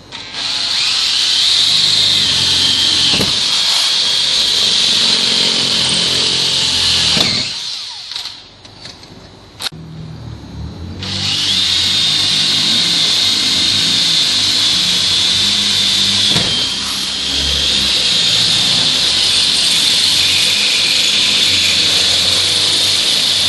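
Cordless drill with a 1/4-inch bit boring through a steel door, a steady motor noise with a high whine from the bit cutting metal. It drills for about seven seconds, stops for a few seconds with a single click, then drills again for about twelve seconds.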